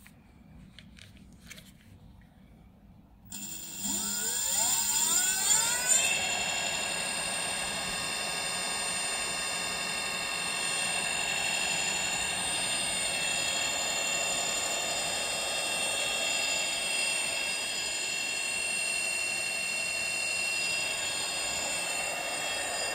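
Brushless rear hub motor of a 60 V 2000 W e-bike conversion kit starting up about three seconds in, its whine rising in pitch as it spins up, then running at a steady speed with a steady high whine. A few faint clicks come before it starts.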